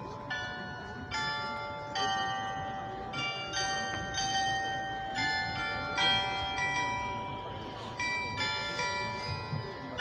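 A set of tower bells on a town hall playing a melody: one struck note after another, roughly two a second, each bell ringing on under the next.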